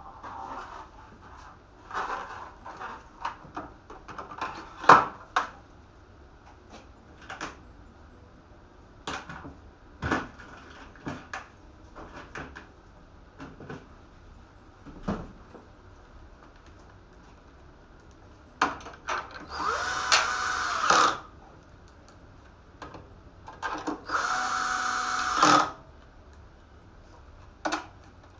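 Small electric screwdriver running in two bursts of one to two seconds near the end, driving screws. Before the bursts come scattered clicks and knocks of parts being handled.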